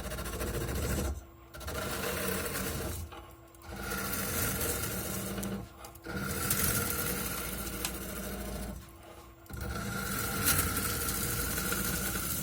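Tool handle being machined on a lathe: a steady rasping, whirring cut that comes in stretches of a couple of seconds, broken by short pauses, some stretches carrying a faint high whine.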